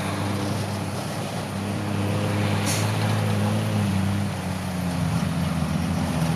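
Heavy diesel engine running under load, its pitch rising and falling as the revs change, with a brief hiss about two and a half seconds in.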